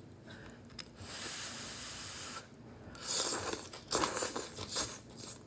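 Close-miked eating sounds: a steady airy hiss lasting over a second, then a run of crunchy bites and chewing near the end.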